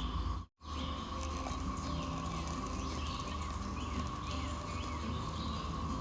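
Birds chirping again and again in short falling calls over a steady background hum, after a brief cut-out about half a second in.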